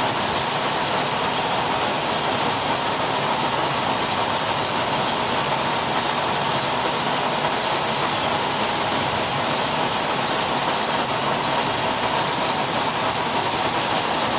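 Milling machine running steadily while milling a keyway in a shaft, an even machining noise with a faint steady whine.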